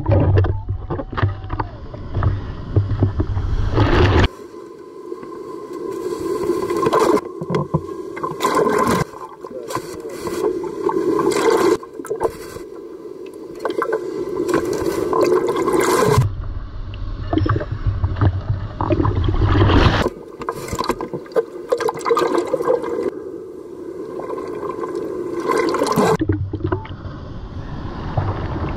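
Heavy shorebreak surf heard from a camera in the water: waves breaking and water washing around and against the camera. Stretches of deep rumble alternate with lighter rushing, and the sound changes suddenly several times.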